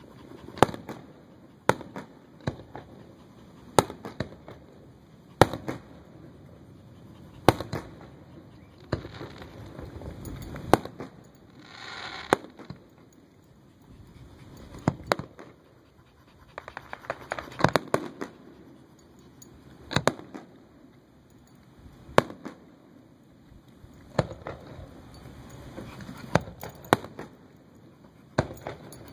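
Aerial fireworks shells bursting: sharp booms every one to two seconds, some in quick clusters, over a low rumble.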